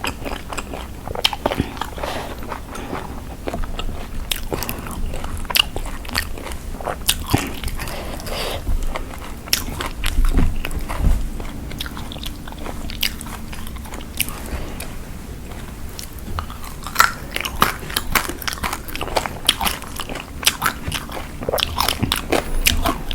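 Close-miked eating of a spicy Thai lime salad: biting and chewing, with many short crisp crunches and wet clicks coming irregularly throughout.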